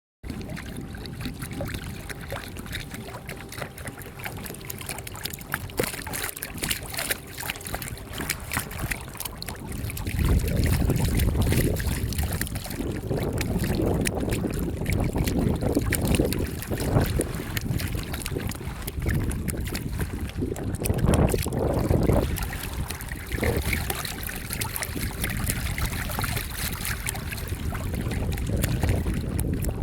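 RC bait boat running on open water, with wind buffeting the microphone; the gusts grow heavier from about ten seconds in.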